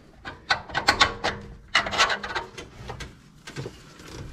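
Irregular clicks and short scrapes of metal parts and tools being handled while an alternator spacer and mounting bolt are worked into place on a 289 V8, busiest in the first two seconds and again briefly near the end.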